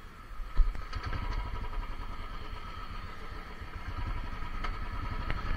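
Royal Enfield Bullet 350's single-cylinder engine running as the bike rides along, its rapid low firing pulses growing stronger about a second in. A sharp thump comes just before.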